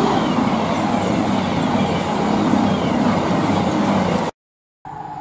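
Express passenger train running past a platform at speed: a steady rush of wheels on rail with a low rumble underneath. The sound cuts off abruptly about four seconds in.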